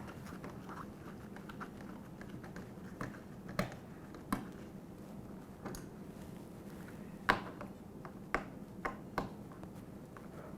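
Sparse light clicks and taps of a hand tool on metal as the Phillips screws holding the dishwasher's door hinge assembly are taken out, with a few sharper clicks in the second half.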